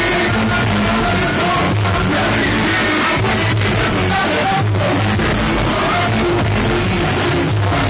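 Loud live band music with drums and vocals, from a hip-hop stage set with a live drummer, and a steady heavy beat.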